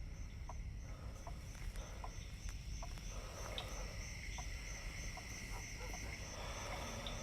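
Faint night ambience of insects chirping in a steady, even pulse, with a few faint scattered ticks.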